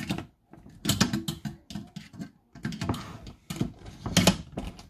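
Irregular clicks and knocks from the temperature-control probe of a Saladmaster electric skillet as it is set by hand.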